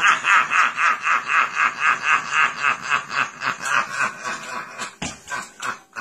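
A man laughing hard: a rapid, high-pitched cackle of about five pulses a second, breaking into looser bursts after about four seconds.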